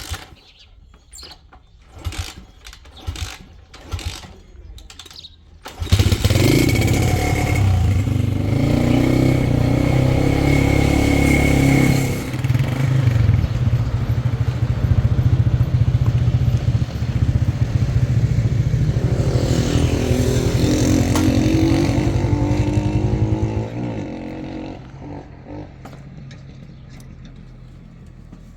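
Small motorcycle engine starting after a few knocks, running and revving up, then pulling away and fading out.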